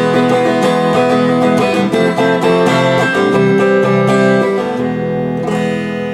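Guitar being played: a run of picked notes and chords, ending with a last strummed chord about five and a half seconds in that rings out and slowly fades. Picked up by a camera-mounted Sony ECM-XYST1M stereo microphone.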